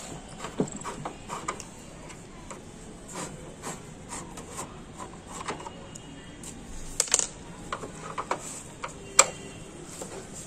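Screwdriver working at the plastic rear housing of an LG CRT monitor: scattered small clicks, taps and scrapes of metal on plastic, with sharper snaps about seven and nine seconds in.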